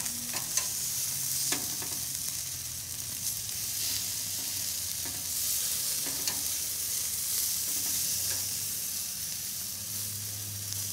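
Hamburger patties sizzling on a charcoal grill, a steady hiss, with a few light clicks of metal tongs against the patties and grate.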